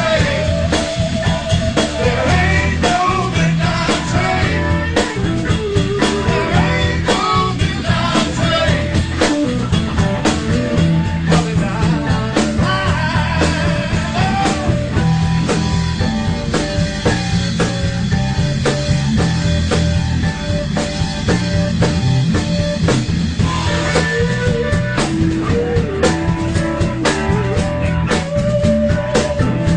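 A studio-recorded bluesy rock song: a lead vocal over guitar and a drum kit keeping a steady beat.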